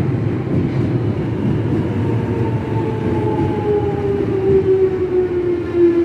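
Jubilee line 1996 Stock Underground train moving along the platform with a steady rumble. From about two seconds in, its electric traction-motor whine falls slowly in pitch as the train slows.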